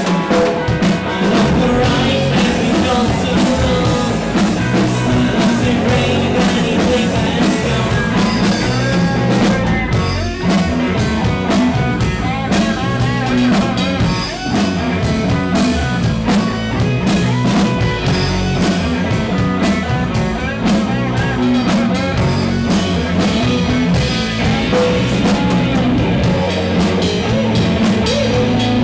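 Three-piece rock band playing live: electric guitar, electric bass and drum kit, with the drums and cymbals coming in right at the start.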